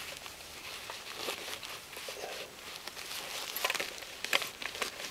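Gloved hands and a padded jacket rustling and scraping as a helmet's chin strap is undone and the helmet is pulled off, with a cluster of sharp clicks and knocks from the helmet shell about three and a half to four and a half seconds in.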